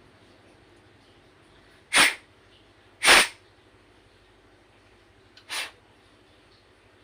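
Three short hissing blasts of air, the second the loudest and the third softer, as a clogged chainsaw carburetor is being cleared.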